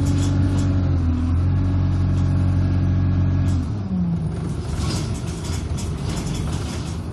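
Bus engine heard from inside the passenger cabin, running with a steady drone. About halfway through, the engine note drops away abruptly, leaving a rougher, noisier rumble.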